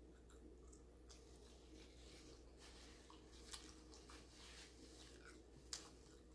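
Faint chewing and wet mouth sounds of eating fried chicken, with scattered small clicks and a couple of sharper ones past the middle, over a low steady hum.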